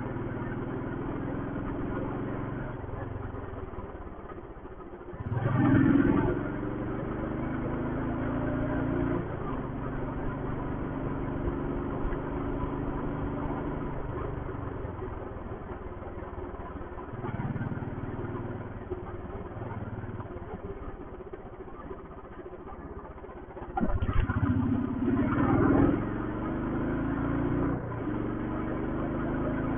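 Royal Enfield Thunderbird's single-cylinder engine running while the bike is ridden. The engine gets louder and rises in pitch twice, about six seconds in and again around twenty-five seconds in, as the throttle is opened, then settles back.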